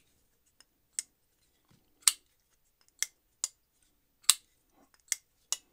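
Spyderco Para Military 2 folding knife with aluminum handle scales flicked open and shut again and again: about seven sharp clicks of the blade snapping open and closed on its compression lock, half a second to a second apart. The freshly reassembled pivot is set a tiny bit tight and its action is breaking in.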